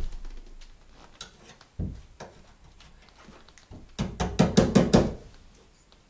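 A single dull thump about two seconds in, then a quick run of six or seven sharp knocks on the wooden wall boards, all within about a second near the end.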